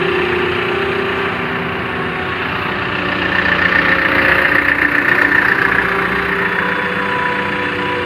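Diesel engine of a hydra pick-and-carry crane running steadily, with a higher whine rising over it and getting louder for a few seconds in the middle before easing off.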